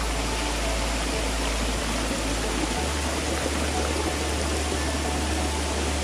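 Steady rush of a forest waterfall and its stream, mixed with soft background music whose low bass note shifts about three seconds in.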